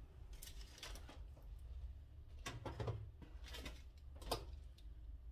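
Breaded onion rings being set into a nonstick air-fryer basket: a handful of soft taps and rustles, over a steady low hum.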